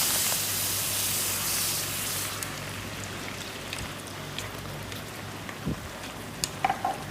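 Water running with a rushing hiss for about two and a half seconds, then a low steady hum with a few light clicks.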